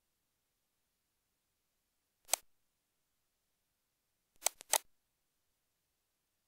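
Internet Explorer's Windows XP 'start navigation' click sound as the browser begins loading pages: one click about two seconds in, then three quick clicks together about two seconds later.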